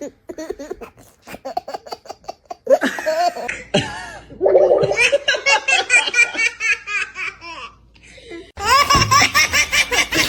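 Young children laughing hard in rapid, high-pitched bursts of giggles, with a brief lull about eight seconds in before a louder burst of laughter.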